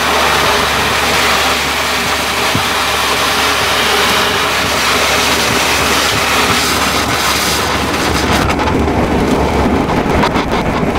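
Pressure washer jetting water into a drum of dirty cloths, a loud steady hiss of spray over the low hum of the washer's pump. About eight and a half seconds in, the spray changes, losing some of its hiss and turning rougher.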